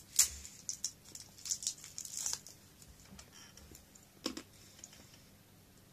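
Wrapper of an individually wrapped Melty Kiss chocolate crinkling as it is unwrapped: many sharp crackles over the first two and a half seconds, then quieter, with a single knock about four seconds in.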